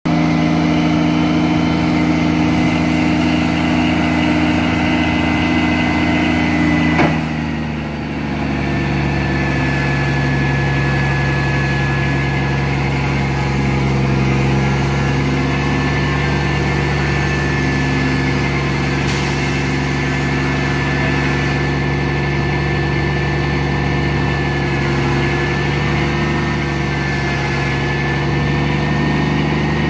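Semi truck's diesel engine running steadily while it powers the hydraulic hoist tipping up the end-dump trailer's box to unload dirt, with a faint steady high whine over it. About seven seconds in there is a click and the engine note changes, and a brief hiss comes near the middle.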